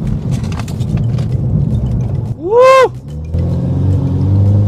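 Ford Mustang's 2.3-litre turbocharged four-cylinder engine pulling hard, heard from inside the cabin: a loud low rumble at first, then an engine note that climbs steadily as the revs rise. A short "woo" shout cuts in a little past halfway.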